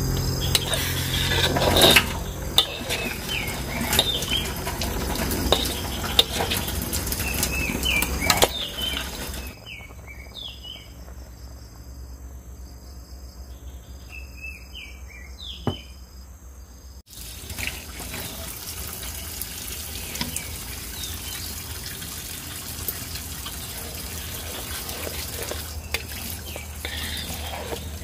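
Creamy buttermilk sauce with chicken bubbling and sizzling in a wok, with a metal spoon now and then knocking and scraping against the pan. In a quieter stretch in the middle, short bird chirps come through.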